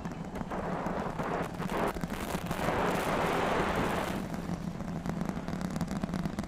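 Rocket engine roar with a sharp crackle from the Super Heavy booster's 33 Raptor engines climbing after liftoff. It swells about two seconds in and eases after about four.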